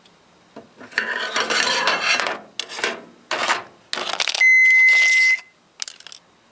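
Scraping and clattering handling noises in irregular bursts, with a single steady high electronic beep lasting about a second, about four and a half seconds in. The beep, typical of a microwave oven's control panel, is the loudest sound.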